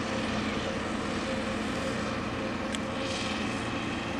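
A steady engine drone with a constant hum over a wash of outdoor noise, with one brief tick about two-thirds of the way through.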